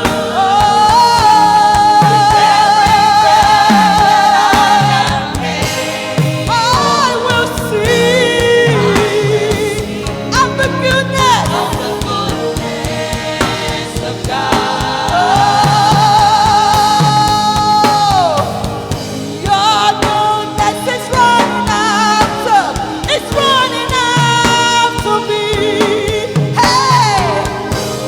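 Gospel worship music: a lead singer holds long, wavering notes and sings quick runs over steady accompaniment.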